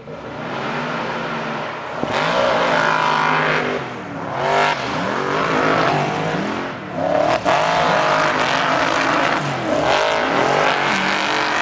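Engines of off-road racing buggies revving hard on a dirt track, their pitch rising and falling again and again with the throttle.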